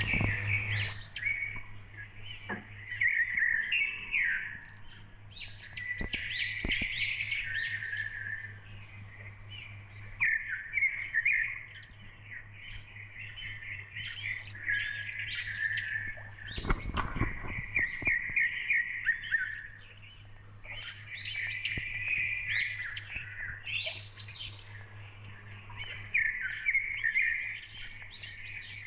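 Many small birds chirping and twittering in quick, dense bursts, over a steady low hum.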